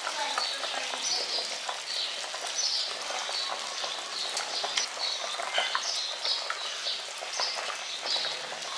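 Masala fish curry gravy boiling hard in a pan with pieces of fried rohu fish in it: a dense, steady crackle of small bubbles popping.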